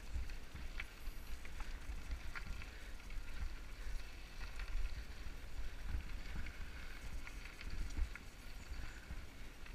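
Mountain bike rolling down a dirt and gravel trail, with scattered clicks and rattles from the tyres and frame, over a steady low rumble of wind buffeting the helmet camera's microphone.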